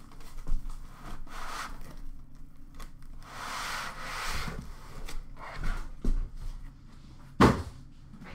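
Cardboard and foam packing rubbing and scraping as a foam-wrapped box is slid out of a cardboard carton, with a longer slide a few seconds in and one sharp knock near the end.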